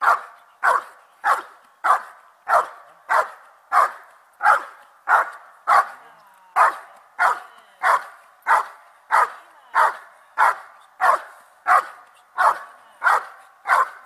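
A dog barking steadily and rhythmically at a protection-training helper, about three barks every two seconds without a break: the bark-and-hold of protection work.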